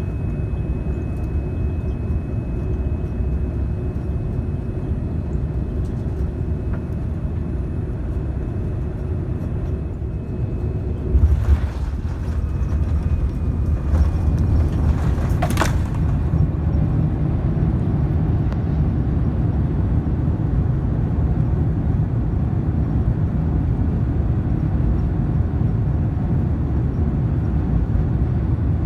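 Jet airliner cabin noise: a steady low rumble. A thump comes about eleven seconds in and a sharp knock a few seconds later, and the rumble grows a little louder from about fourteen seconds in.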